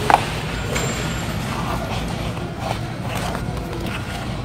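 Steady background hum of a shop, with faint distant voices and one short knock about a tenth of a second in.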